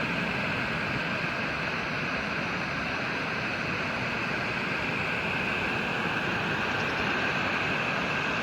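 Creek water falling over rocks: a steady rushing of a small waterfall or cascade.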